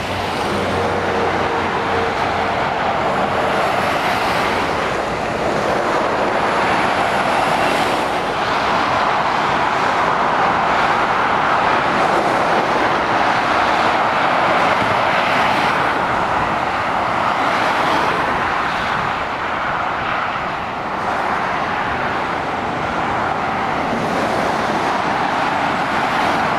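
Steady motorway traffic noise: the tyres and engines of cars and lorries passing on the carriageway below, an even continuous hiss that swells and dips slightly as vehicles come and go.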